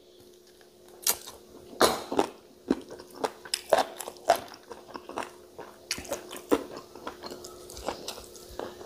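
Close-miked wet chewing and lip-smacking of a person eating sticky rice dipped in a chicken wing and liver stir-fry sauce by hand, with many sharp, irregular mouth clicks.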